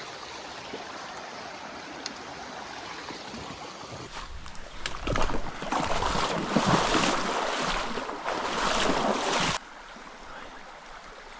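Small mountain stream flowing steadily. From about four seconds in, a louder rushing noise with a low rumble rises over it and cuts off suddenly near the end.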